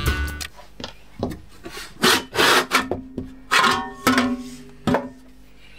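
Metal outer case of a 34401A bench multimeter being slid off its chassis: a run of scraping and rubbing noises, the longest about two seconds in, some with a short squeak. The tail of music fades out at the very start.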